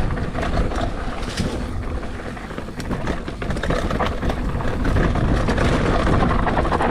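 Mountain bike rolling fast over a rough dirt trail: a steady rumble of tyres on dirt and stones, with the bike's chain and frame rattling over the bumps and wind buffeting the action-camera microphone. It eases off briefly about two to three seconds in, then builds again.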